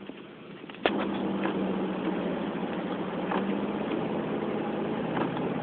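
Steady engine and road noise inside a moving car's cabin, with a low steady hum. About a second in there is a click and the noise gets louder, followed by a few light clicks.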